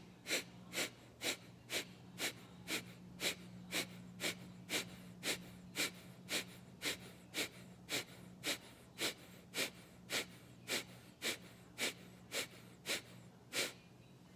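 Kapalbhati breathing: a man's sharp, forceful exhalations through the nose, about two strokes a second in an even rhythm, each pumped by pulling the belly in. The strokes stop shortly before the end.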